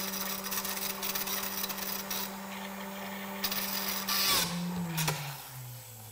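A spindle-type shake mixer's motor runs steadily with fast rattling, dispersing a soil slurry in a steel dispersion cup. About four seconds in, the cup is lowered off the spindle with a brief louder burst and a click, and the motor winds down with a falling hum.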